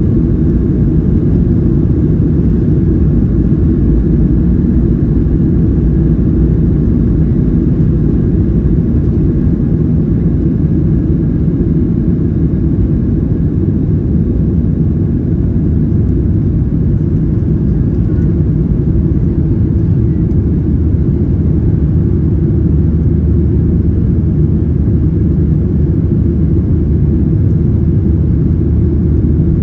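Boeing 737-700 heard from inside the cabin on its takeoff roll and liftoff: its CFM56-7B engines at takeoff power make a loud, steady rumble.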